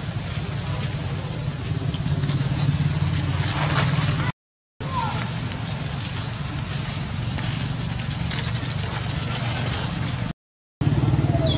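Steady outdoor background rumble with a low hum, cut to complete silence twice for about half a second each; a faint short falling chirp near the end.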